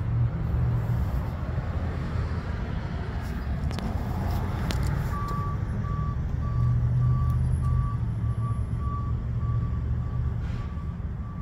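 Steady low rumble of a vehicle engine running, with a reversing alarm starting about five seconds in and beeping evenly, a bit under two beeps a second.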